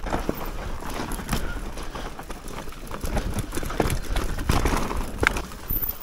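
Mountain bike descending a rough dirt singletrack: tyres rolling over the ground while the chain and frame rattle and knock irregularly over bumps, with wind rumbling on the microphone.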